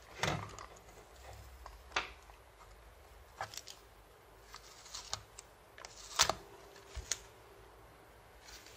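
Scattered small clicks and crinkles of gloved fingers and tweezers handling a thin flex ribbon cable as a strip of tape is peeled off it, about six sharp clicks in all, the loudest about six seconds in.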